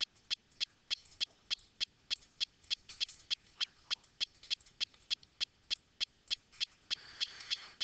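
A rapid, very regular series of sharp clicks, about three and a half a second.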